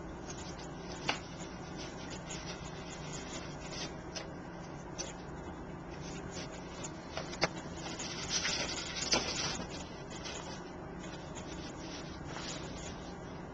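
Light taps and a brief rustle of card and small tools being handled on a craft table over a steady low hum, with the busiest handling about two thirds of the way through.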